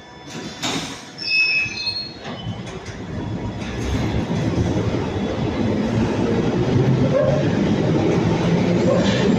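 London Underground tube train pulling out of the station: a short hiss and brief high squeals about a second in, then the rumble of wheels on the rails building steadily as the train gathers speed.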